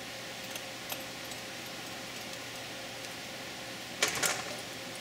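Small screwdriver turning the screw of a Quadrajet carburetor's secondary metering rod hanger, giving a few faint metal clicks, then a short metallic clatter about four seconds in, over a steady background hum.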